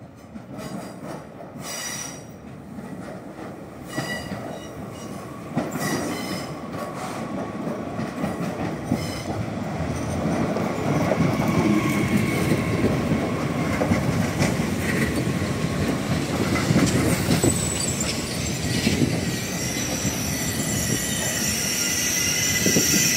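Bombardier AGC regional multiple unit pulling into a station and passing close by, growing steadily louder as it comes. Wheels click over rail joints a few times early on and squeal with thin steady tones, and a higher-pitched squeal builds near the end as it brakes to stop.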